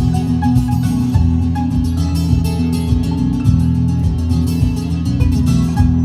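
Background music with a steady beat, led by plucked guitar over a heavy bass line.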